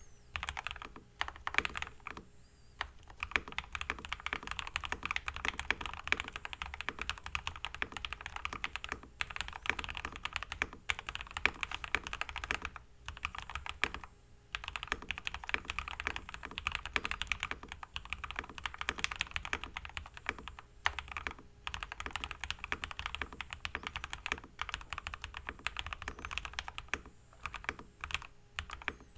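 Fast, continuous typing on a modded Keychron K8 mechanical keyboard with lubed Everglide Aquaking V3 switches on a POM plate, damped by PE and Poron foam, with lubed and clipped stabilizers. A rapid stream of keystrokes that breaks off in a few short pauses.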